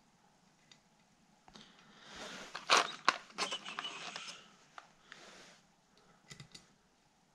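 Hands rummaging in a clear plastic bag of small metal screws: the plastic crinkles and the screws clink, starting about a second and a half in and loudest about three seconds in, with a few fainter clicks near the end.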